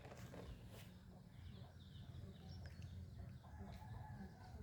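Near silence with a low steady hum and a few faint bird chirps.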